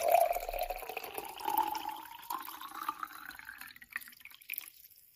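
Wine poured into a glass: a splashing pour whose pitch rises steadily as the glass fills, trailing off near the end.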